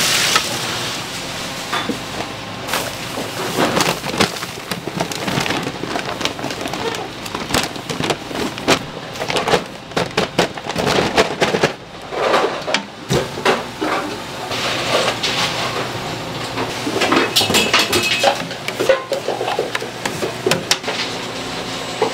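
Bakery kitchen work noise: irregular clattering and knocking of tools and trays over a steady noisy background.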